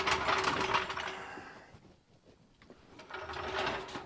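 Trailer wheel hub and brake drum turning on the axle spindle as the spindle nut is tightened, a metallic whirring from the hub and its new bearings in two spells about a second and a half long. The hub is spun to seat the wheel bearings.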